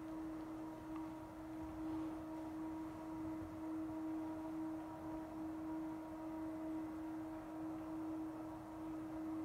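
A steady hum at one pitch with fainter overtones, wavering slightly in strength.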